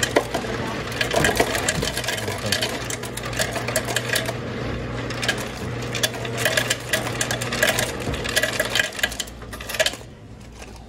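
Self-serve soda fountain dispensing into a paper cup: a steady hum from the dispenser valve under the pouring stream and the crackling fizz of the carbonated drink, cutting off near the end.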